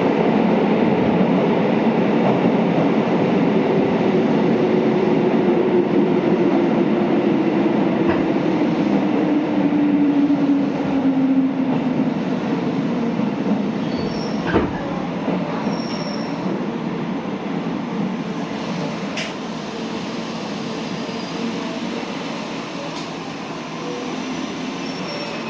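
Onboard running noise of a JR 205-series electric commuter train, echoing in a tunnel. A tone falls in pitch over the first dozen seconds, then the noise slowly eases through the second half.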